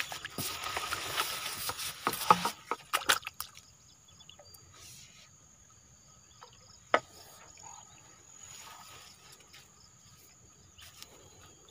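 Water splashing and net handling noise for the first two seconds or so as the fishing nets are worked over the stream, then mostly quiet with a few sharp clicks and a faint steady high tone underneath.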